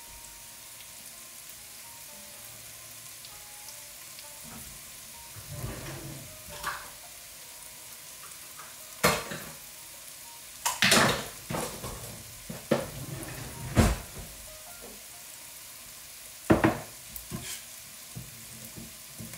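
Green beans and peppers sizzling steadily in an oiled frying pan. From about halfway through, a series of sharp, loud knocks and clatters cut in over it.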